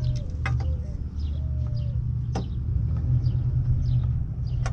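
Several sharp plastic clicks and knocks as headlight trim pieces are pressed into place by hand, over a steady low rumble. Birds chirp throughout.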